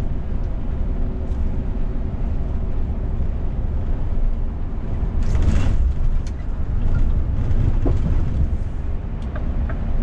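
Scania S500 truck's 13-litre straight-six engine and road noise inside the cab, a steady low rumble while cruising at highway speed. A brief hiss comes about five and a half seconds in.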